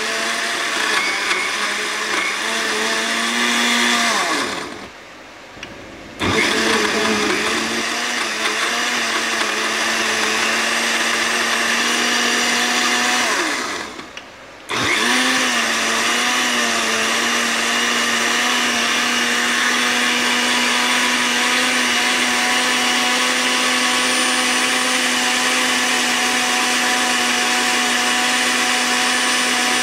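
Countertop blender motor running, puréeing spinach, evaporated milk and queso fresco into a green sauce. It winds down and stops for about a second and a half about four and a half seconds in, starts again, stops briefly again around fourteen seconds, then runs steadily.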